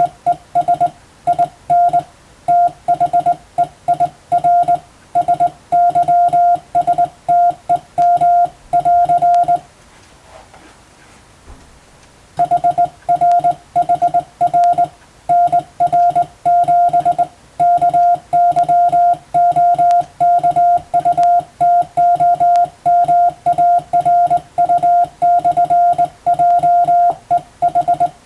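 Morse code (CW) sent by hand on a telegraph key: a single steady tone keyed on and off in dots and dashes at practice speed. About ten seconds in, the sending stops for nearly three seconds, then carries on.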